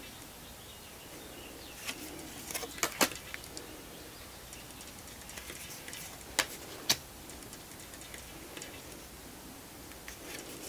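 Tarot cards being handled and shifted in the hand: a cluster of sharp, brief card clicks a couple of seconds in, then two more about halfway through, over faint room hiss.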